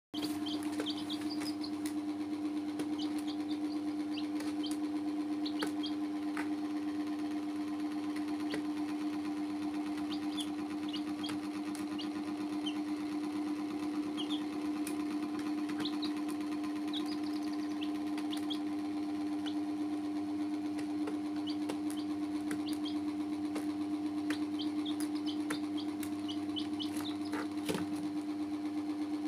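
Baby chicks peeping in short, high chirps, scattered and irregular, over a steady mechanical hum that is the loudest sound.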